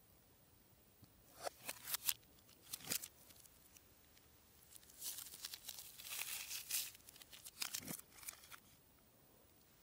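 Clear plastic wrapper of a Kinder Maxi chocolate bar crinkling as it is handled: a few short crackles, then a longer stretch of denser crinkling.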